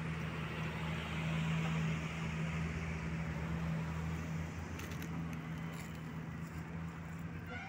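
A steady low hum of an engine running evenly, with a deeper rumble under it and a few faint clicks about five seconds in.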